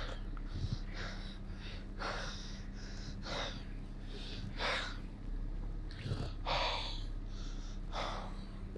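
A man breathing heavily in short, uneven gasps, about one a second, from an attack of intense abdominal pain.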